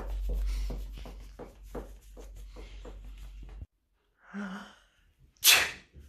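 A man sneezes once, loudly, about five and a half seconds in, with a short voiced intake of breath a second before. Earlier, close-up snuffling and rustling as a dog nuzzles at his face, with low handling rumble, which cuts off abruptly.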